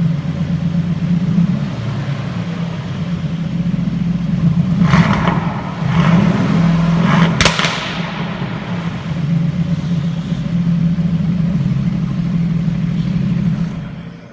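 Aston Martin Vantage's 4.0-litre twin-turbo V8 running with its exhaust note, with a few sharp exhaust cracks about five and seven and a half seconds in. The sound drops away near the end.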